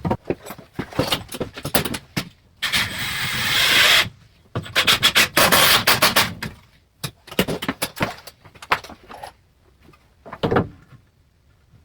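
Scraping and rubbing on wood in two longer passes, the first growing louder, set among scattered knocks and clicks of handling framing lumber.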